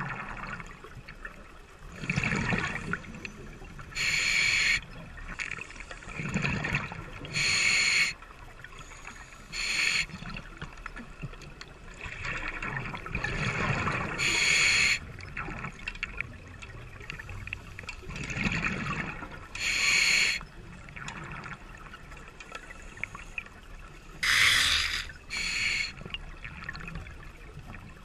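Scuba diver breathing underwater through a regulator: hissing inhalations alternating with bubbling, gurgling exhalations, repeating every few seconds.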